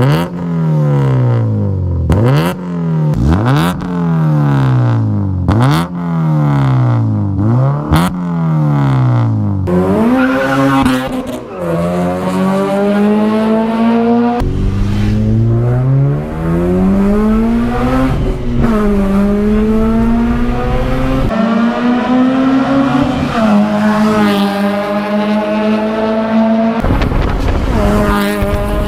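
2009 Honda Civic Si four-cylinder engine revved in six quick blips, each one rising sharply in pitch and falling back. It then pulls under load, its pitch climbing steadily and dropping suddenly at about three gear changes.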